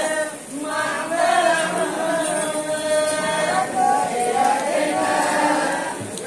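A group of men chanting a Sinhala low-country ritual verse in unison, in long held, wavering notes. There is a short break for breath about half a second in, and the chant eases near the end.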